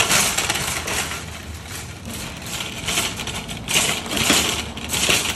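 Rapid, dense clattering and rustling noise that surges louder several times.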